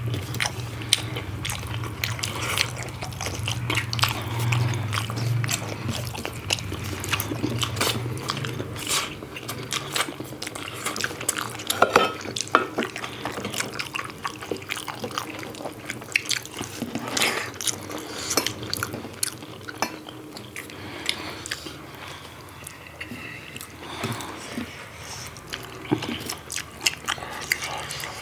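Close-up eating sounds of pork curry and rice: wet chewing and lip smacks, with many short sharp clicks.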